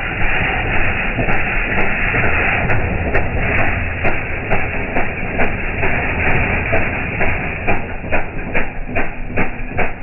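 Mini bike's small engine running, slowed down so the firing strokes come through as separate knocks, about two to three a second, over a steady rushing noise. The knocks come closer together in the last few seconds as the engine speeds up.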